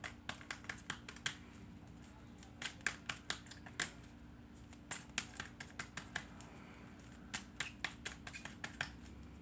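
Irregular light clicks and taps, in scattered clusters.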